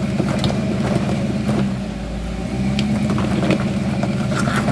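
Off-road vehicle engine running steadily at low revs as it crawls up a rock ledge, with scattered sharp clicks and knocks, and a brief dip in level about two seconds in.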